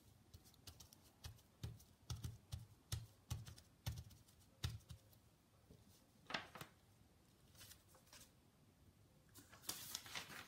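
Faint, soft dabbing taps of a Versamark ink pad pressed onto the crafted piece, about two a second, stopping about halfway, with a few light clicks. A brief rustle near the end.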